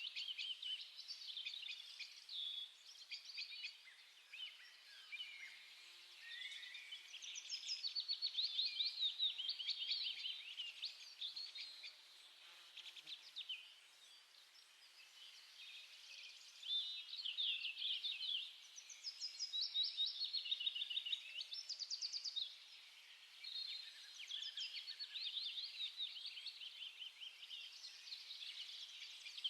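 Small birds chirping and twittering in quick runs of high chirps, with short lulls between runs.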